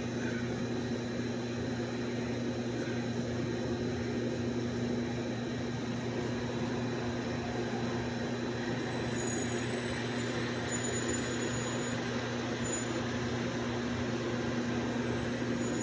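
Steady low hum of running machinery, an unchanging drone with a fainter tone above it.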